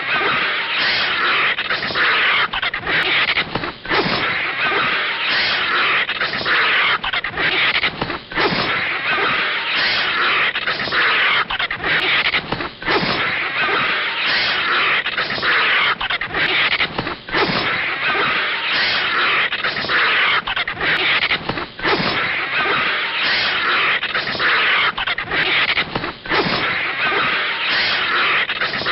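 Anime sound effects of a snake fighting a vulture: harsh, hiss-like animal noise in rapid bursts with short breaks.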